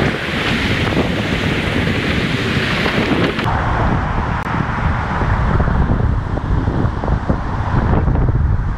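Wind buffeting the microphone of a camera on a moving bicycle, over a steady low rumble of the tyres rolling across wooden deck planks. The high hiss drops away suddenly about three and a half seconds in, leaving mostly the low rumble.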